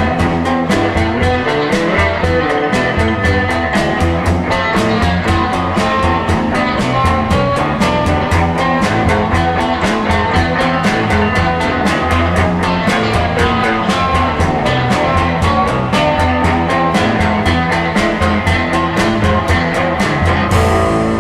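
Instrumental passage of a psychedelic garage-rock song: guitar over a steady drum beat. The beat stops near the end and a final chord rings on.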